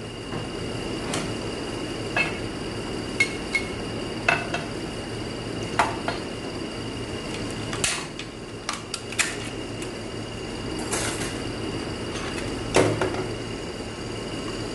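Metal automatic-transmission parts being handled on a workbench: a dozen or so irregular clinks and taps of metal on metal.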